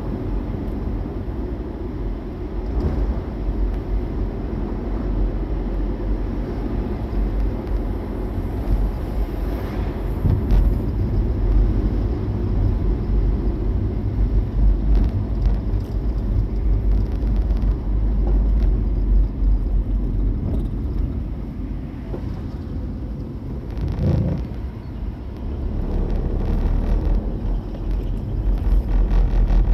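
Car driving: a steady low road and engine rumble with some noise over it, and a few light knocks.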